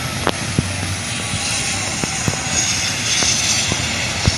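Steady rushing noise of a helicopter's turbine engine still running after the crash, with several sharp clicks and knocks scattered through it.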